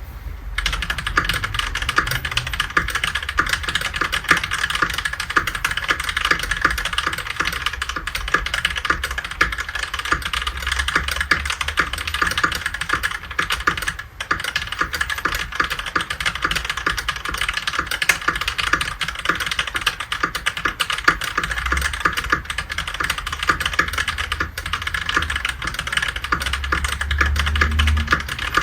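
Continuous fast typing on a Keychron V1 mechanical keyboard with lubed Keychron K Pro Brown tactile switches and GMK keycaps, a dense run of keystroke clacks with a brief pause about halfway through.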